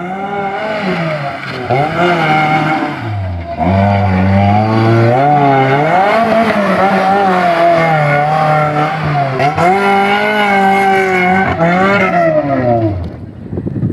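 Maruti Gypsy 4x4's engine revving hard while driven across loose dirt, its pitch rising and falling again and again. It drops away shortly before the end.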